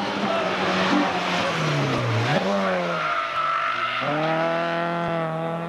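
Peugeot 106 rally car taking a bend at speed. The engine note drops as it slows for the corner, with a quick blip about two seconds in, then climbs again as it accelerates out and holds at high revs.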